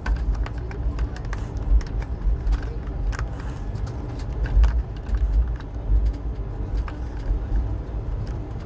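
Passenger train in motion, heard from on board: a steady low rumble with frequent irregular clicks and rattles from the coach and the track.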